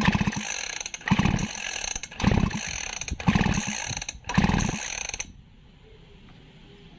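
Recoil starter of a Robin-type 411 two-stroke grass cutter engine being pulled five times about a second apart, the engine spinning over freely with its spark plug out while the plug is checked for spark. The pulling stops about five seconds in.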